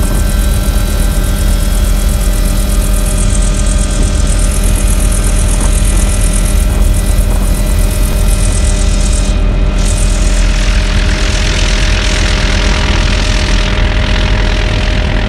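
High-performance powerboat engines running steadily at speed, heard from inside the cockpit over rushing wind and water. The rushing hiss grows stronger from about two-thirds of the way in.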